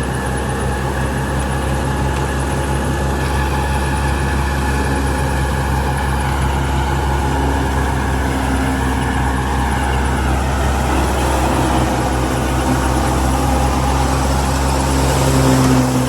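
Diesel engine of an old combine harvester running steadily under working load, a deep drone with a fast, even pulsing, getting a little louder near the end.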